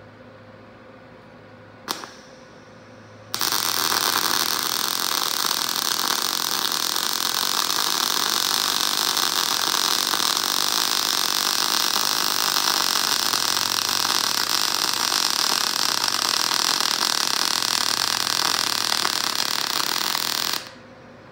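Wire-feed welder's arc crackling steadily while a bead is run on steel pipe. It starts about three seconds in after a short click, runs unbroken for about seventeen seconds, and cuts off suddenly near the end.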